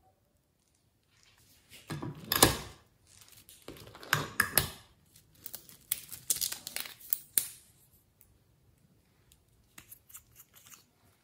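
Small plastic beads on a rainbow beaded ornament rattling and rustling as it is handled, a run of irregular crinkly clicks and rasps that is loudest in the first half. A few light plastic clicks follow near the end as a liquid lipstick tube is handled.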